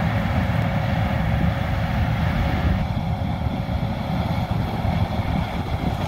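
John Deere combine harvester running steadily while harvesting corn, a continuous low rumble with a steady hum.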